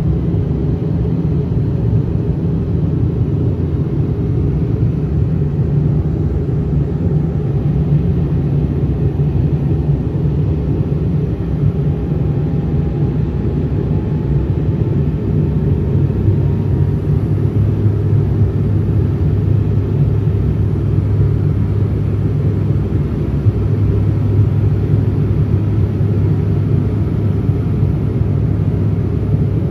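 Cabin noise of a Bombardier Q400 turboprop airliner on approach with its landing gear down, heard beside the propeller: a steady, loud, low drone of the PW150A engines and six-blade propellers mixed with airflow noise. About halfway through, a deeper hum in the drone grows stronger and holds, and a faint rising whine comes and goes before it.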